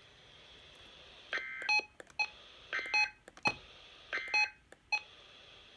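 NOAA Weather Radio SAME end-of-message data signal: three short buzzy two-tone data bursts about a second and a half apart, marking the end of the weekly alert test. A few sharp clicks fall between the bursts.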